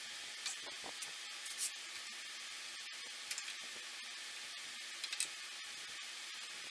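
A screwdriver driving a screw into an oak piece of furniture: a few soft, scattered clicks and ticks over a steady faint hiss.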